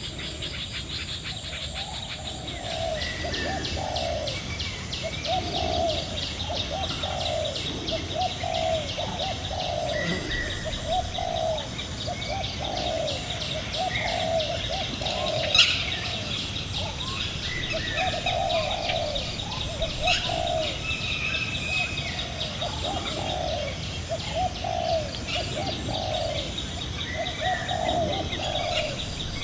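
Birds calling: a low note repeated over and over, with fine chirring above it. A steady high-pitched whine comes in about two and a half seconds in, and there is one sharp click near the middle.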